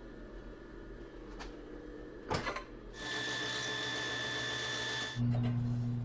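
A sharp metal knock about two seconds in, then a belt sander running for about two seconds, a steady hiss with a high whine, that cuts off abruptly. A low steady hum starts right after.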